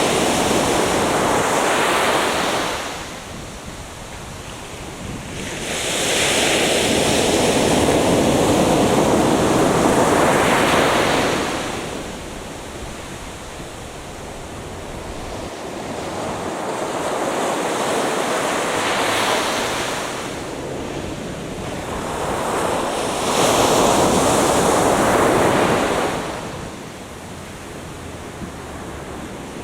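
Atlantic Ocean surf breaking on a beach. The waves rush in and wash back in slow swells, about four of them, each lasting a few seconds, with quieter lulls between.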